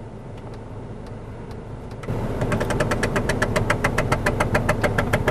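Rapid, even clicking, about ten clicks a second, from the left dash air vent of a Mercedes-Benz W205 C-Class, starting about two seconds in over a steady low hum. It is the 'da-da-da' noise the left air distribution actuator (N16/11) and its flap mechanism behind the vent make when the temperature setting is changed: a faulty actuator/flap.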